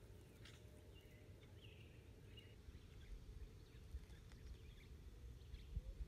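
Faint, thin peeping of bluebird nestlings begging with gaping beaks: a few short high calls in the first half, over a steady low rumble.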